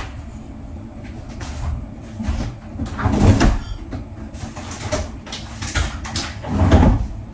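Kitchen handling noise as cookware and cupboards are worked: irregular knocks, clatters and scrapes, with two heavier thuds about three seconds in and near the end.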